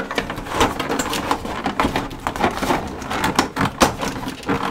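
Stiff black plastic blister-tray packaging crackling and clicking as hands flex it and pull pieces out of it: a dense, uneven run of sharp crackles.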